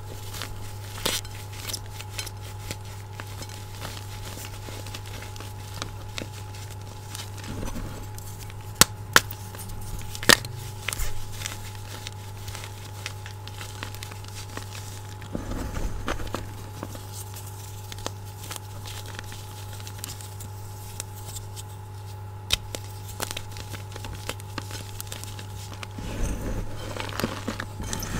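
Hands crushing and crumbling broken blocks of fresh gym chalk in a glass bowl: scattered crisp crackles and snaps as chunks break, with soft crunching and squishing of the powder. A steady low hum runs underneath.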